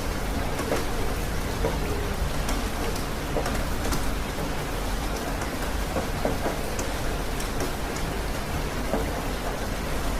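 Steady rain falling, with scattered individual drops ticking close by over a low, constant rumble.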